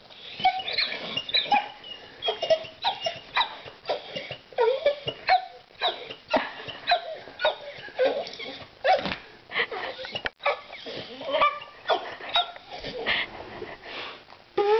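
Pit bull dog whimpering and yipping in a string of short, high cries that rise and fall, mixed with many sharp clicks.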